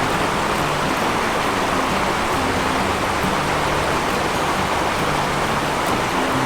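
A steady rushing noise like running water or rain, with low notes of background music stepping beneath it.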